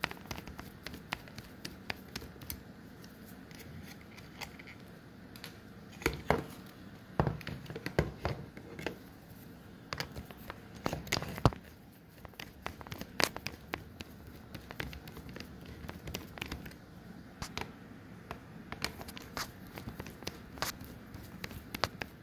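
Hands working with a small screwdriver on a hard drive's mounting bracket: irregular clicks, taps and small knocks of tool and metal parts, with a busier run of louder knocks in the middle.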